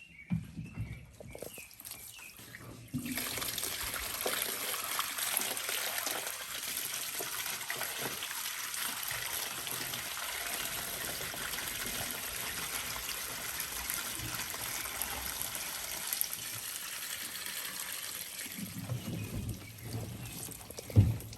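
Water pouring in a steady stream, starting suddenly about three seconds in and fading near the end. A few low bumps follow, then a sharp knock just before the end.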